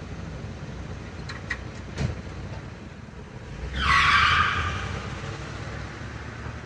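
A few light clicks and a knock, then a loud brief rush of car and tyre noise about four seconds in that fades over a second, over a steady low rumble.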